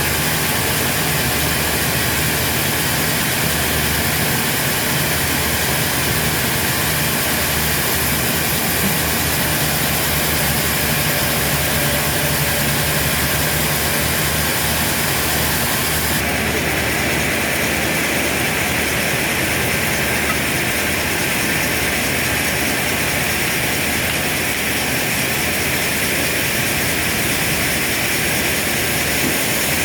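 Heavy sawmill machinery running with a steady, loud mechanical noise; the upper hiss changes character about halfway through.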